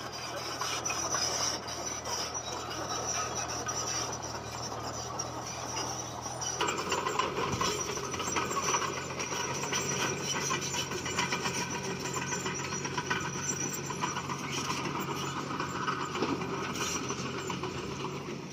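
Komatsu bulldozer's diesel engine running under load, with clanking steel tracks and stone scraping and grinding. The engine note rises a little about a third of the way through.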